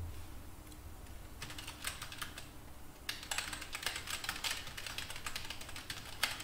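Typing on a computer keyboard: a short run of keystrokes about a second and a half in, then a longer, quicker run from about three seconds in.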